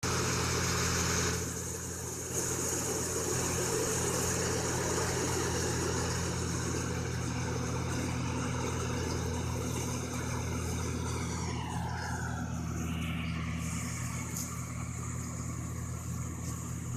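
Rice combine harvester running steadily, its engine humming, with a higher mechanical whine that drops in pitch about twelve seconds in.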